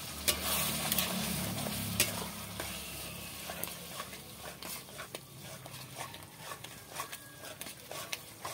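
A metal spatula stirs and scrapes a thick spinach paste through hot oil in a metal kadai, with a frying sizzle and frequent clicks of the spatula against the pan. It is louder for the first couple of seconds, then settles lower.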